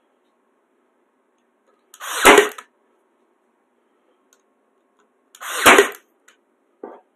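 Ryobi cordless nailer firing twice, about three and a half seconds apart, driving nails into a wooden screen-door frame. Each shot is a brief rising whirr that ends in a sharp bang. A light click near the end.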